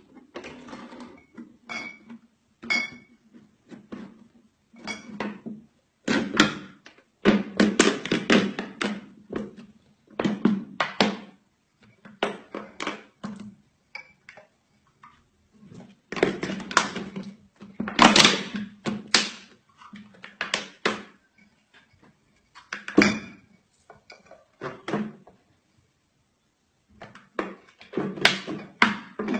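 Beer glugging in a large plastic jug as it is chugged straight from the jug, air bubbling back in with each gulp. The glugs come in irregular runs with short pauses between them.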